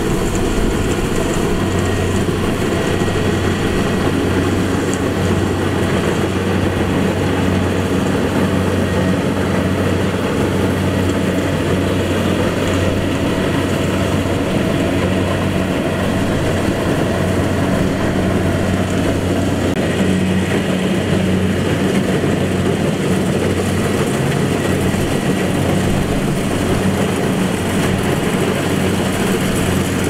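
Kubota combine harvester's diesel engine running, a steady low drone mixed with the machine's mechanical clatter.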